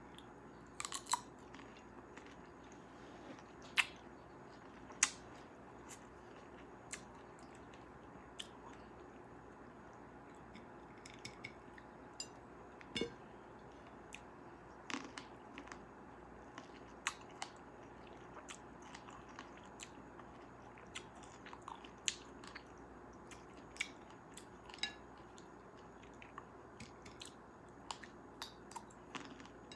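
Close-miked mouth sounds of someone eating cherries: biting and chewing, heard as irregular sharp clicks, a few at a time, scattered throughout.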